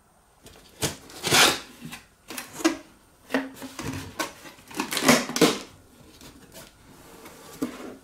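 Cardboard box being opened by hand: a series of irregular scraping, rustling bursts as the flaps are pulled open and the packed parts inside are handled.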